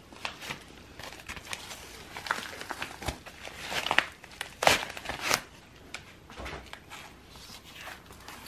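Packaging crinkling and rustling as it is handled and opened, with scattered taps and clicks. The crinkles grow louder and denser about four to five seconds in.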